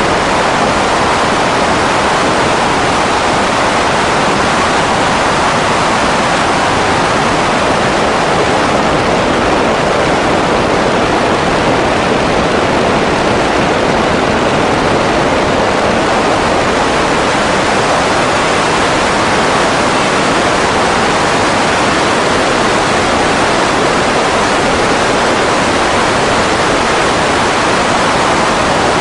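Grumman G-164 Ag Cat seaplane under power: a loud, steady rush of engine, propeller and prop-wash noise, with no distinct engine tone or change.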